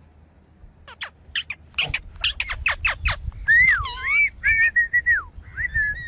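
Indian ringneck parakeet calling: after a quiet second, a quick run of about ten sharp, falling chirps, then longer whistled calls that dip and waver in pitch.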